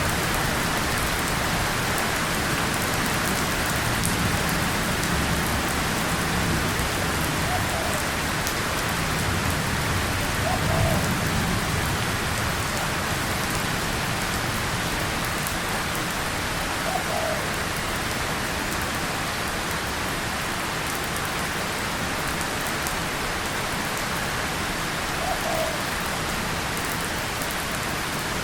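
Steady rain falling on a tin surface and leaves, with a low rumble of distant thunder swelling and fading in the first half.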